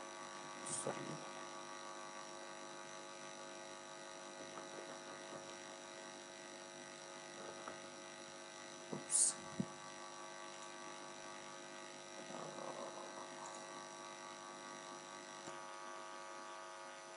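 Steady electrical hum and buzz on the recording, made of many fixed tones, typical of mains hum picked up by the microphone. A few short faint clicks break through, the loudest about nine seconds in.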